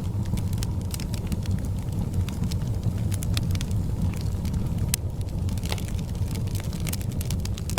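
A fire burning in a fireplace: a steady low rumble of flame with frequent scattered sharp crackles and pops.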